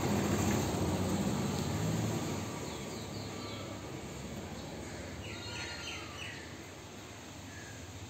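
Low ambient street noise, louder in the first couple of seconds and then easing off, with a few short bird chirps about midway.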